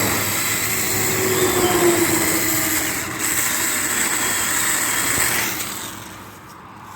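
A vehicle passing by on the road: a loud rush of tyre and engine noise that swells up, holds for about five seconds with a slowly falling tone, then fades away.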